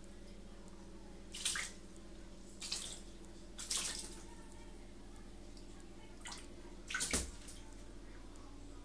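A cat's paws splashing in shallow bathtub water: about four short splashes, the last and loudest near the end, over a steady low hum.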